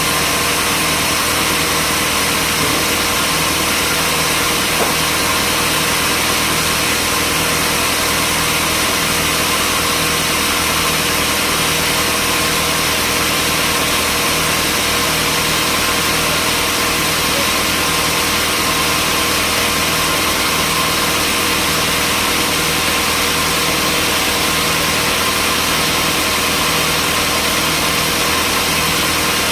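Sawmill machinery running steadily: an even, engine-like drone with a constant whine that does not change.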